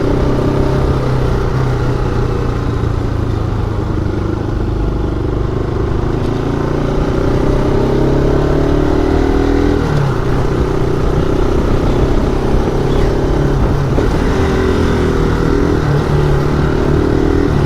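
Motorcycle engine running while being ridden, its note rising and falling with the throttle a few times.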